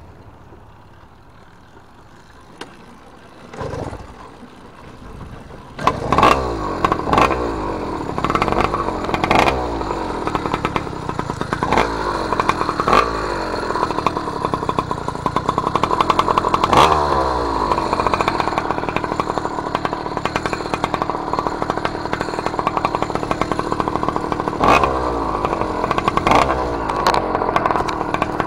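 Newly ported 47 mm iron-sleeve two-stroke motorized-bicycle engine with a jog-pipe expansion-chamber exhaust. It comes in loud about six seconds in, revving in repeated surges that fall away as the throttle is let off, then holds a high steady run under way.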